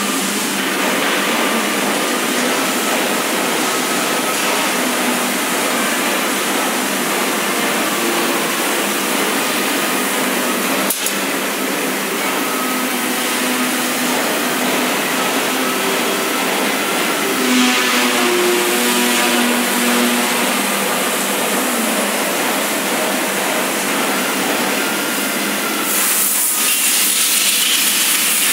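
Steady, loud factory machinery noise, a constant hiss and hum, with a single sharp click partway through and a louder hiss coming in near the end.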